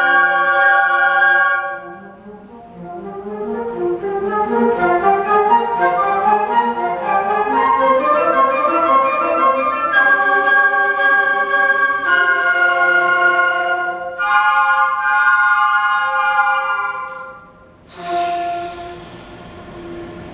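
Flute choir playing its closing passage: held chords, then fast running figures, then more held chords that break off near the end.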